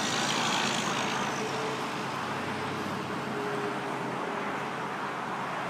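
Steady road traffic noise, slightly louder in the first second and then easing.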